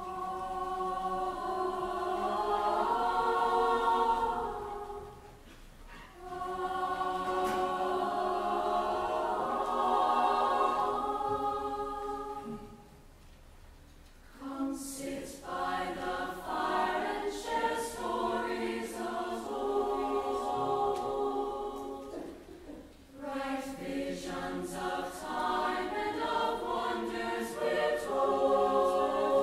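Large mixed high school choir singing held chords in long phrases, with brief pauses between phrases about five, thirteen and twenty-three seconds in.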